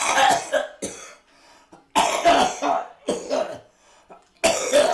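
An elderly man coughing and hacking hard in four fits, the loudest about two seconds in: he is choking after swallowing an apple core.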